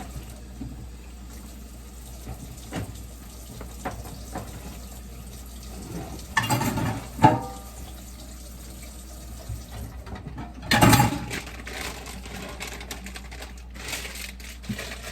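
Water running at a kitchen sink, with a few louder bursts of splashing or clatter about six to seven seconds in and again about eleven seconds in.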